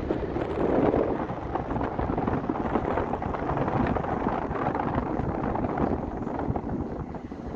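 Jet engines of a FlySafair Boeing 737 at takeoff thrust as it climbs away after takeoff: a steady, deep rumbling roar that eases slightly near the end.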